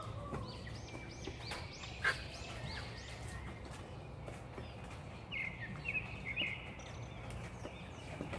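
Chickens in a coop giving short, high calls in quick runs of about two to three a second, one run early and another about five seconds in. There is a single sharp knock about two seconds in.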